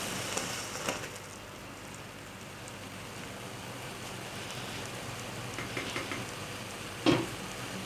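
Pot of water, oil and salt at a boil on the stove, bubbling steadily. A few light clicks, and one louder knock about seven seconds in.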